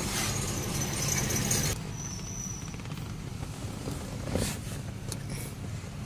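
Steady low hum of a car heard from inside the cabin, with a hiss over it that cuts off suddenly after about two seconds and a brief rustle about four seconds in.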